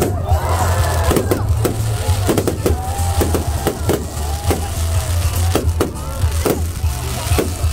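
Fireworks bursting overhead in a rapid string of sharp bangs and crackles, about two a second. Music and a steady low rumble run underneath.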